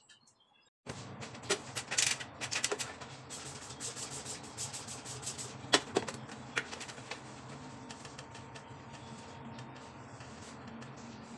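Many sharp clicks and taps from cleaning things being handled, a spray bottle and cloth among them, over a steady low hum. The hum starts suddenly about a second in.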